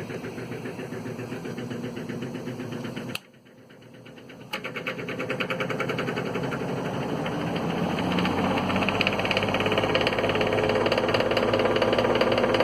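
A GE three-speed reversible box fan's motor and blade running in reverse on low, with a fast rattly vibration. About three seconds in it cuts out sharply at a click, and a second and a half later it comes back with another click and gradually gets louder as the fan picks up speed. Its sluggish low setting is the sign of dry bearings, which the owner says definitely need oiling.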